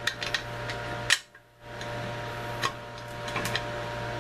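Light metallic clinks and taps of hand tools on steel parts while a bushing is bolted into a control arm, with one sharper knock about a second in, over a steady low electrical hum.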